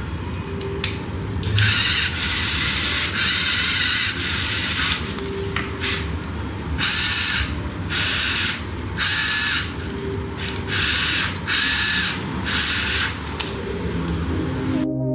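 Small electric RC servos whining as they drive a model aircraft's landing-gear struts: one long run of whine about two seconds in, then half a dozen short bursts about a second apart as the gear is moved back and forth.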